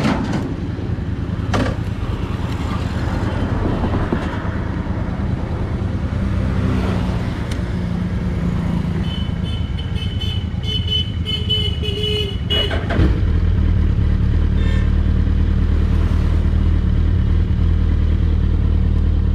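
Motorcycle engines idling, loud and steady, getting louder about 13 seconds in. A vehicle horn sounds for about three seconds just past the middle, with a few short knocks around it.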